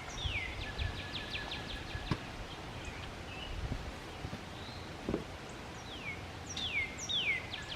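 A songbird singing: a few falling whistled notes followed by a fast trill, twice, about six seconds apart. A few soft knocks sound in between.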